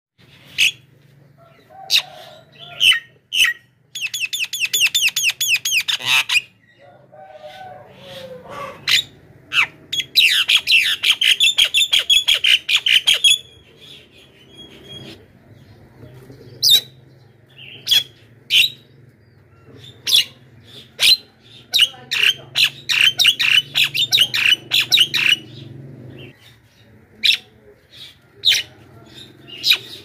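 Javan myna screaming: loud, sharp single calls scattered throughout, broken by three long runs of rapid, chattering screeches, about four, ten and twenty-two seconds in. A faint steady low hum lies underneath until near the end.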